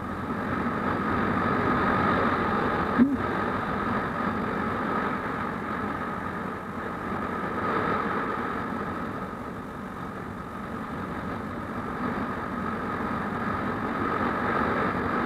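Motorcycle engine running steadily at road speed, with road and wind noise swelling and easing. A single sharp click comes about three seconds in.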